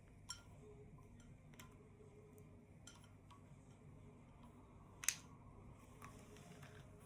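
Near silence broken by a few small, sharp clicks and taps of hands handling the packaging and headphones, the loudest about five seconds in.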